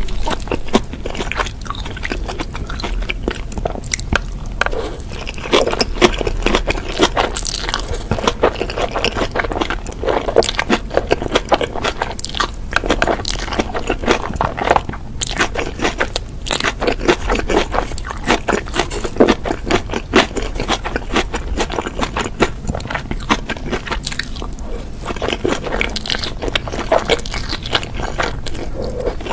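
Close-miked eating sounds: biting, crunching and wet chewing of saucy black noodles, kimchi and sauced fried chicken, in a dense run of small clicks and crackles. A noodle is sucked into the mouth near the end.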